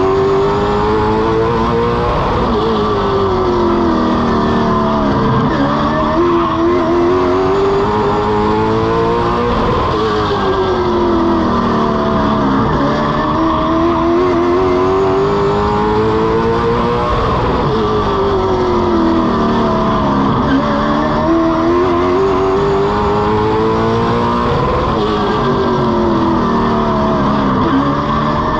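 Race car engine heard from under the car at speed, its pitch climbing for a few seconds and then dropping sharply, again and again, as it accelerates on each straight and lifts for each turn of a short oval.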